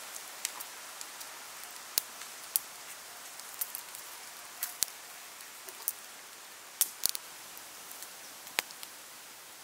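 Wood fire crackling under a covered cooking pot: a steady soft hiss with irregular sharp pops and snaps, three in quick succession about seven seconds in.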